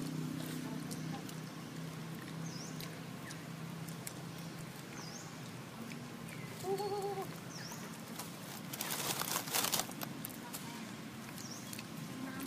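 Outdoor ambience with high, short swooping bird chirps every couple of seconds. A brief wavering animal call comes about halfway through, and a burst of rustling follows about three-quarters of the way in. A low hum fades out over the first few seconds.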